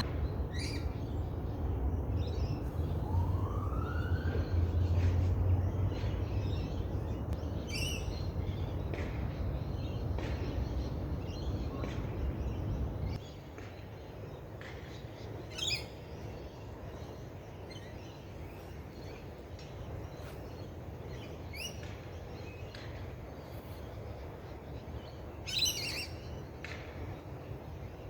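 Wild birds chirping in short, scattered calls over a low steady rumble; the rumble cuts off suddenly about halfway through, leaving the calls over a quieter background.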